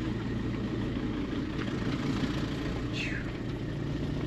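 Van engine running steadily, a low even hum with road noise. About three seconds in there is a short high squeak that falls in pitch.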